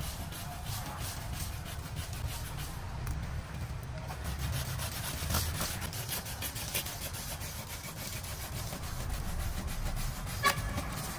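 Hand pruning saw cutting into the stem of a young sweetsop tree: repeated rasping back-and-forth strokes of the blade through the wood. A sharp click comes near the end.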